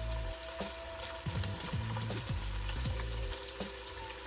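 Sliced andouille sausage sizzling and crackling in hot vegetable oil in a Dutch oven as it browns.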